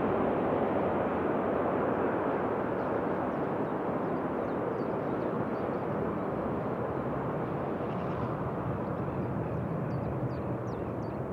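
Jet engines of a twin-engine widebody airliner on final approach, a steady rush that slowly fades as the aircraft moves away over the runway.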